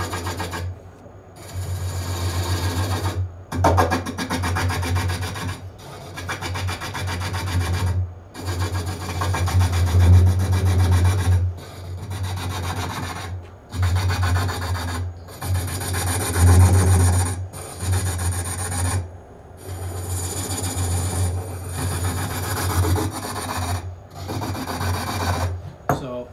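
Steel hook tool cutting a spinning wooden cup blank on a Japanese-style lathe, a rough rasping chatter in passes of one to two seconds with short breaks between them, as the blank is turned round.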